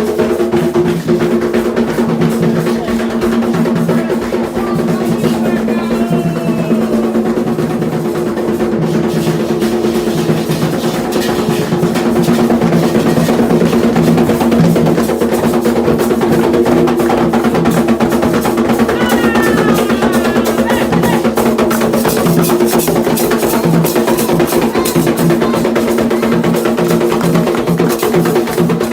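Candomblé ritual drumming on atabaque hand drums, a dense unbroken rhythm that gets a little louder about halfway through.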